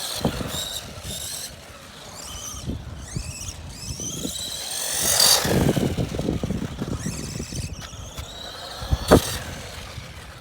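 Small RC monster truck's 380 electric motor whining, its pitch rising and falling as it speeds up and slows, over the rough noise of its tyres on the ground. It is loudest as it passes close about five seconds in, and a sharp knock comes near the end.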